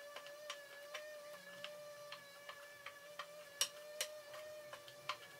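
Small white oak discs being set down one by one on a wooden workbench: light, irregular wooden clicks, about two or three a second, with two sharper ones near the middle. A faint steady high hum runs underneath.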